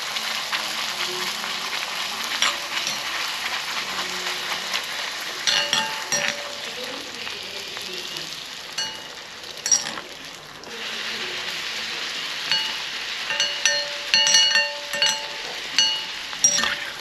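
A puri deep-frying in hot oil in an iron kadai, a steady sizzle. A metal slotted spoon clinks against the pan now and then, most often in the last few seconds, as the puri is pressed and turned.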